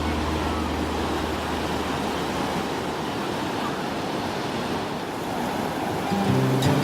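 Ocean surf on a beach: a steady rushing wash of waves.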